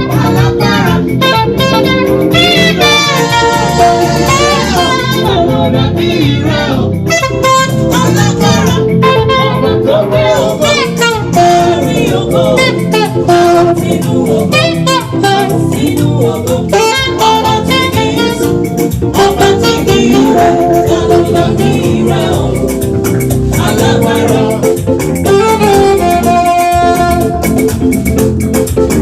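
Live gospel band music, with a saxophone playing a gliding lead melody over the band.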